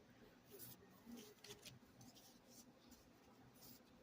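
Near silence with a few faint, scattered light ticks and rustles of tarot cards being leafed through by hand.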